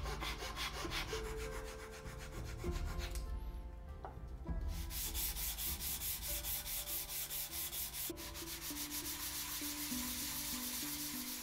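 Sandpaper on a hand-held wooden sanding block rubbing back and forth over a small black walnut box in quick, even strokes. The strokes stop briefly a little over three seconds in, then resume, with background music underneath.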